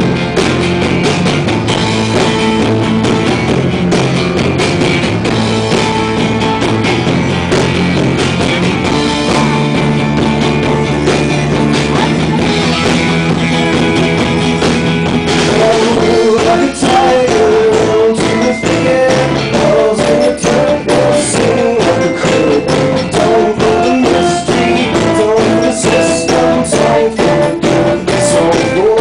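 A live band playing an instrumental passage: strummed acoustic guitar, bowed cello, electric guitar and drum kit. About halfway through it gets louder, as a higher melody line and busier drum hits come in.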